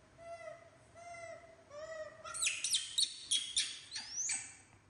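Young macaque monkeys calling for food: short, arching coos about once a second, then, about halfway in, louder, high-pitched screeches for about two seconds, the last one rising. These are hungry, impatient begging calls.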